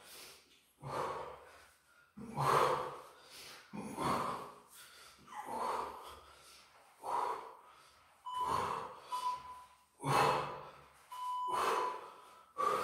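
A man breathing hard while doing crunches: forceful exhales, one every second or so, in an uneven rhythm.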